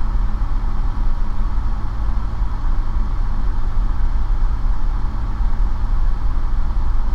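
Light aircraft's piston engine and propeller droning steadily at cruise power, heard from inside the cockpit.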